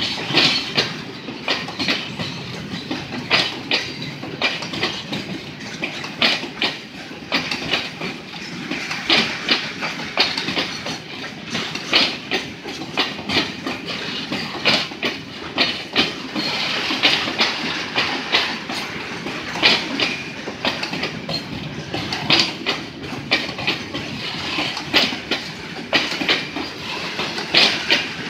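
Freight train of grain boxcars rolling past: steel wheels clattering over the rail joints, with a steady run of sharp metallic clanks and clicks.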